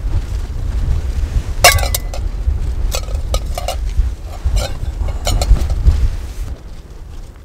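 Metal camping cookware being handled: several sharp clinks and knocks that ring briefly, the loudest about a second and a half in. Wind rumbles on the microphone underneath and dies down near the end.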